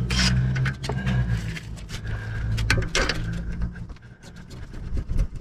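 Metal clicks and scrapes of a screwdriver working at a car's auxiliary belt tensioner, prising at its stuck locking pin, over a steady low rumble.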